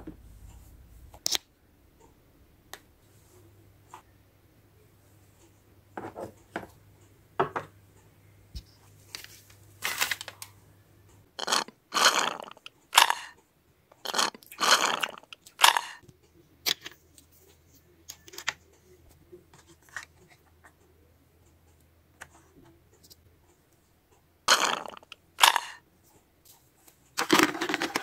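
Handling noise: scattered short rustles, scrapes and clicks from plastic toy dishes, a toy fork and a plush toy being moved about, with quiet gaps between and a busier run of them in the middle.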